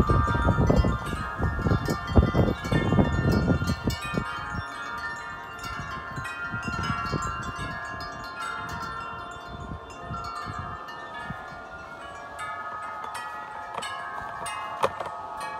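Wind chimes ringing continuously in strong wind, many overlapping tones. A heavy low rumble of wind gusts on the microphone comes in the first few seconds and dies away.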